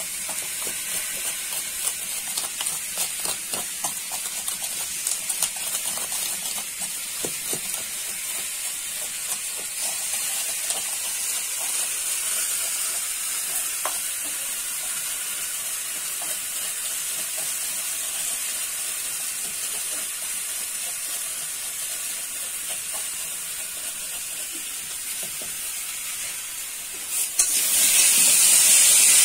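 Green chilies being crushed by hand with a stone in a wooden bowl: irregular knocks and grinding scrapes, thickest in the first several seconds, over a steady sizzle of frying. About 27 seconds in, the sizzle becomes much louder: potato pieces frying in oil in a metal pan as they are stirred.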